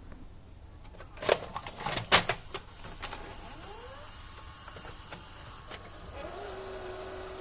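Toshiba K60 VCR taking in a cassette: a few clicks and knocks as the tape is pushed in and drawn into the transport, then the tape mechanism's motor whirs and settles into a steady hum near the end. The repaired loading mechanism is taking the tape in smoothly.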